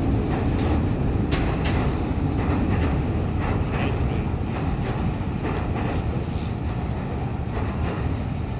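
Train running across a steel truss railway bridge: a steady rumble with scattered clicks and clacks from the wheels on the rails, slowly getting quieter toward the end.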